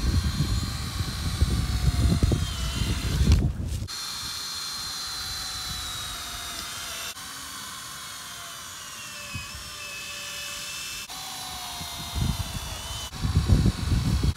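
Cordless drill whining as it bores drainage holes up through the thick rubber bottom of an old tractor tire, its motor pitch wandering up and down. The first four seconds and the end are louder and rougher, with a sudden drop in between.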